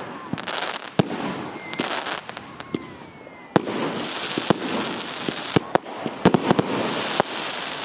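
Fireworks going off: a rapid, irregular run of sharp bangs and pops over a crackling hiss, growing denser and louder from about three and a half seconds in.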